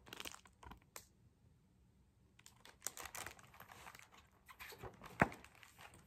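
Faint rustling and crinkling of a picture book's paper pages being handled and turned, with scattered small clicks and one sharper tap about five seconds in.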